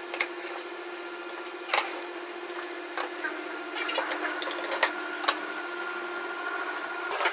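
Wooden slats clacking as they are set down on a wooden frame and against each other, several separate sharp knocks, over a steady machine hum.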